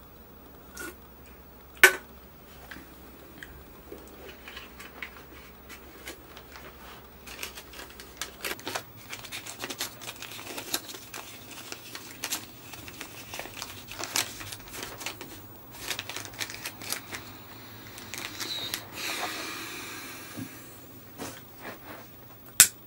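Rolling paper and tobacco being handled to roll a joint by hand: light rustling, crinkling and small clicks, thickest in the middle stretch. A sharp click about two seconds in and another near the end.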